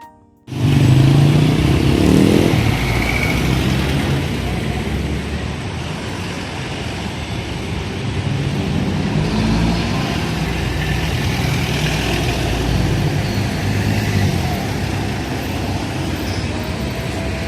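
Steady rumble of motor vehicles on a road, starting suddenly about half a second in as background music cuts off.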